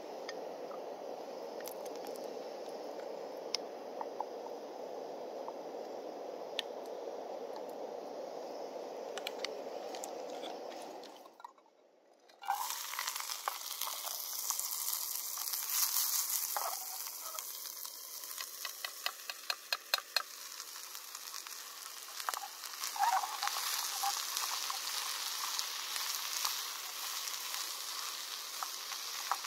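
A portable gas camping stove burner runs with a steady low rush under a small pan. About twelve seconds in, diced vegetables are frying and sizzling in the pan, with clicks and a quick run of taps from the utensil stirring them against the metal.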